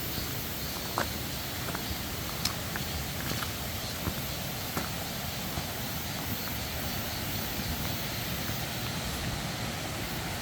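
Steady rush of a mountain stream, with scattered light clicks and snaps over it.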